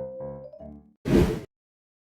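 Background music with piano-like keyboard notes fading out, followed about a second in by a short, loud whoosh of noise, then silence.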